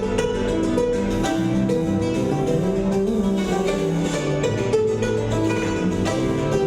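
Music with guitar, a continuous stretch of plucked and sustained notes at a steady level.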